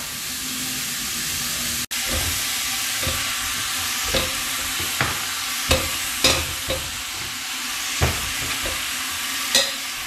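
Onion and carrot sizzling steadily as they fry in oil in an Afghan kazan, with a series of short knocks as pieces of smoked pork rib are dropped into the pot.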